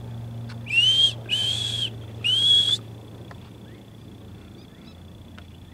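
Three short, high alarm whistles from a ground squirrel (the desert 'prairie dogs'), each about half a second long, sliding quickly up and then held at one pitch. This whistle is their danger call to one another.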